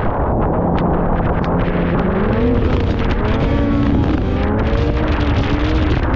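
Snowmobile engine running under way, its pitch climbing about two seconds in and then wavering as the throttle changes, with wind noise on the microphone.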